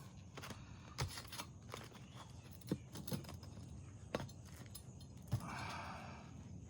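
Scattered light clicks and taps, then a rough scraping rustle a little over five seconds in, from lifting and handling asphalt roof shingles by hand.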